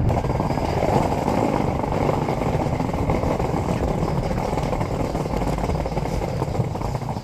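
Skateboard wheels rolling over a street, a steady rough rumble.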